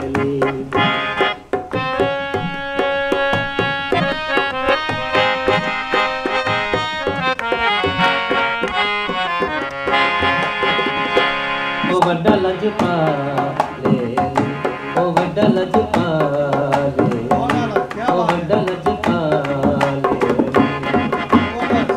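Harmonium and dholak playing together: the harmonium holds steady reed notes and short runs while the barrel drum keeps a regular beat. About halfway through, a man's voice comes in over them, singing a slow, wavering, ornamented line in ghazal style.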